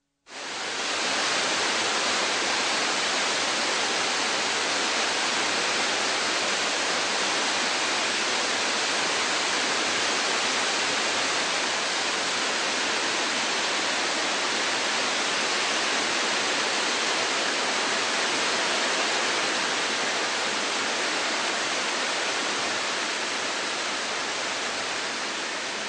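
Waterfall: a steady rush of falling water, fading in at the very start and easing slightly near the end.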